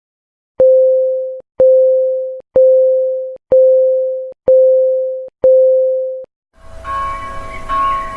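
Countdown timer beeping: six steady, mid-pitched electronic beeps about a second apart, counting down the last seconds. Then church bells start ringing near the end, signalling that time is up.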